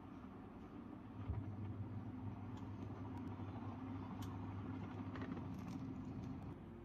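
Washing machine in its spin cycle, drum and motor giving a steady low hum that swells about a second in and drops away just before the end. The feet have been levelled to cure the off-balance drum that kept tripping the spin.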